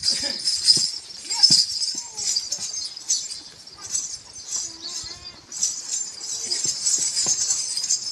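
Bells on a horse's leg straps jingling continuously as it rears and stamps, with scattered knocks and thuds.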